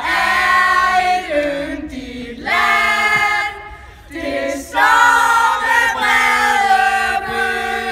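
A group of women singing together in chorus on long held notes, breaking off briefly about halfway through.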